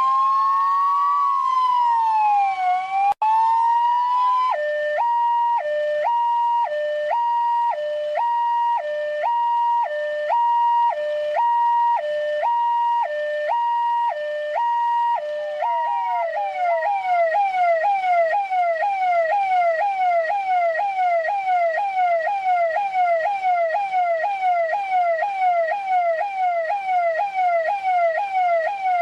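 Russian police car electronic siren cycling through its modes. First a slow rising-and-falling wail, briefly cut off about three seconds in. Then a two-tone high-low alternation about once a second, and from about halfway a fast yelp of falling sweeps, about two a second.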